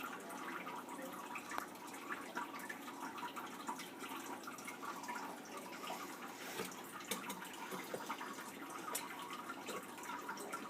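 Steady trickle of running water with many small drips.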